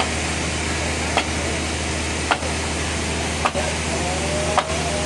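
Sawmill machinery running steadily with a low hum, broken by a short sharp tick about once a second in an even rhythm.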